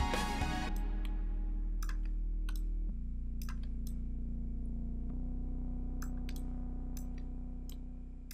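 Background music of sustained low chords that change every couple of seconds and fade out near the end, with scattered sharp clicks.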